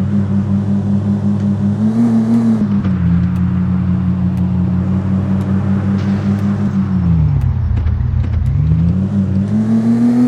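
Mahindra Thar 4x4's engine running as it is driven, holding a steady note, falling about seven seconds in and climbing again near the end, with scattered clicks and knocks.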